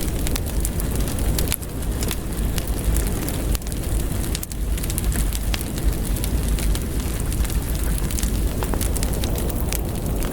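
Heavy rain on window glass: a dense, steady wash with many sharp drop ticks, over a continuous deep rumble.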